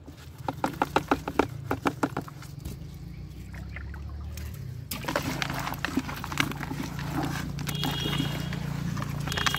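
Live small river fish flapping in a plastic bucket, giving a quick run of sharp taps. About halfway through come dense wet slithering and rustling as hands rummage through the pile of fish.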